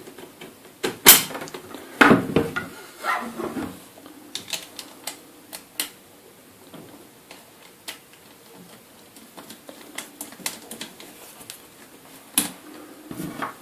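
Irregular clicks and knocks of an inline skate wheel, its metal axle and screw being handled and fitted into the skate frame, with a few louder knocks about a second and two seconds in and again near the end.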